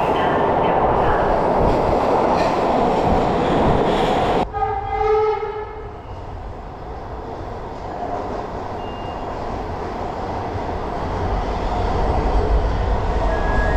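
Loud running noise of a MARTA train cuts off abruptly about four and a half seconds in, and a Hitachi CQ311 railcar's horn sounds one short blast of about a second. Quieter train running noise follows, slowly growing louder toward the end.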